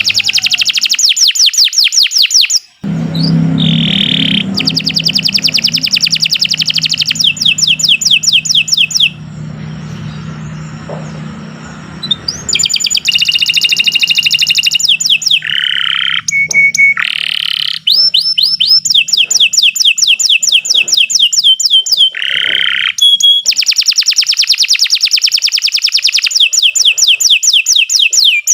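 Domestic canary singing long, fast trills of rapidly repeated high notes, with a few short pauses between phrases. A low steady hum sits underneath for much of it.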